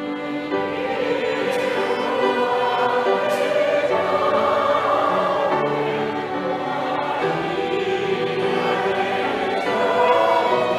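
A choir singing a hymn with a string ensemble of violins and cello, the voices coming in over the strings at the start.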